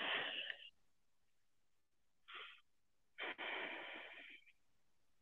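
A man breathing audibly and faintly: one short breath about two seconds in, then a longer breath lasting about a second.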